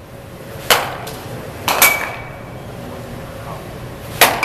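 Baseball bat hitting balls off a batting tee: three sharp cracks, about a second in, just under two seconds in and near the end, the last two with a brief ringing ping.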